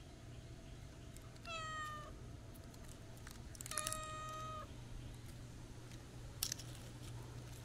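Black cat meowing twice as it is stroked: a short meow about a second and a half in that dips slightly in pitch, then a longer, steady meow at about four seconds. A brief sharp click comes near the end.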